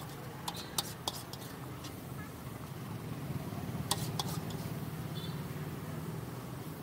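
Sharp plastic clicks and knocks as the red lid of a blue insulated water jug is handled: a few about half a second to a second in, and a cluster near four seconds, over a steady low hum.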